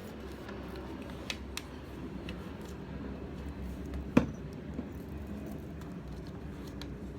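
Faint handling clicks and one sharp tap about four seconds in, over a steady low hum.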